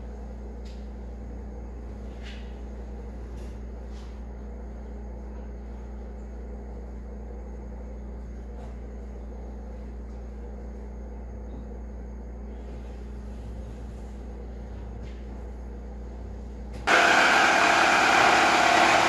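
A steady low hum with a few faint taps, then about 17 seconds in a handheld power saw starts up loudly and cuts through 3/4-inch plywood.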